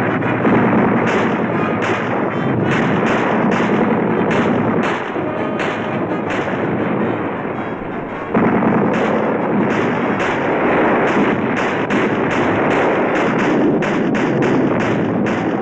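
Soundtrack effects of a barrage of gunfire and blasts: a loud, dense roar full of sharp cracks coming several times a second, which dips briefly and then jumps suddenly louder about eight seconds in.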